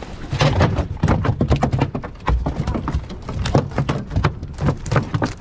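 A freshly netted fish thrashing in the landing net as it is brought aboard, giving rapid irregular knocks and thumps against the boat.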